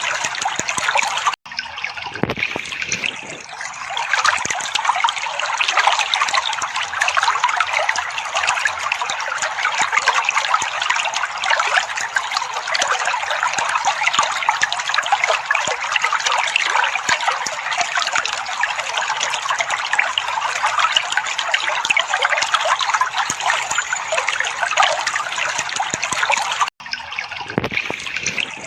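Steady trickling, babbling water, played as a sound to set caged songbirds singing. The sound cuts out for an instant about a second and a half in and again near the end.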